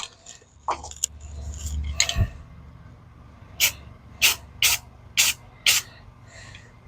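Paint sprayed in five short hissing bursts, about two a second, after a brief low hum and a knock.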